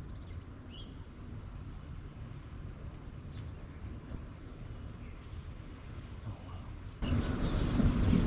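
Outdoor ambience: a faint, steady low rumble with a few faint, short chirps. About seven seconds in, it cuts suddenly to a much louder low rumble.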